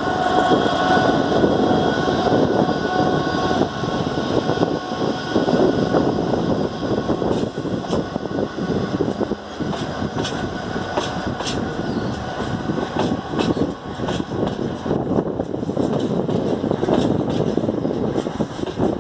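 Freight train behind a Class 66 diesel locomotive rolling past: a steady rumble of wheels on rail, with a thin squeal in the first few seconds. From about seven seconds in comes a quick run of clicks as the wheels cross rail joints.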